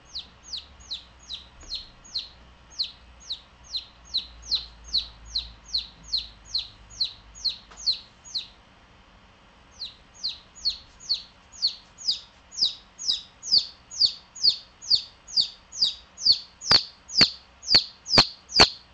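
A baby chick peeping: a steady run of short, high, falling peeps, about two and a half a second. It breaks off briefly past the middle, then resumes and grows louder toward the end.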